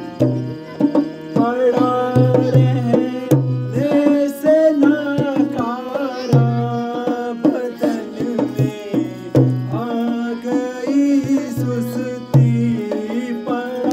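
Indian stage music: tabla drumming with deep repeated bass strokes, under a singing voice and steady held notes.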